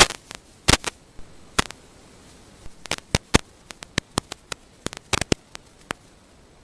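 Irregular sharp clicks and crackles over a faint steady hiss, a cluster near the start and a quicker run between about three and six seconds in.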